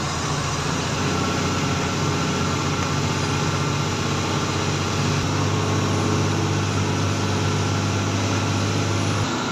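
Heavy truck's diesel engine running steadily as it drives, heard from inside the cab with road noise, a low drone that grows stronger about halfway through.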